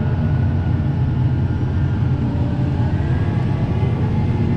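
Tractor engine running steadily under load, heard from inside the cab while pulling a plough: a constant low drone with a faint high whine over it.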